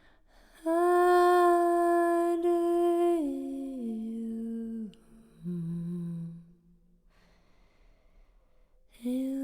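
A woman's voice humming long, held tones for sound healing. One high note holds for about two and a half seconds, then the pitch steps down through three lower notes. The voice falls silent for a couple of seconds before another held note starts near the end.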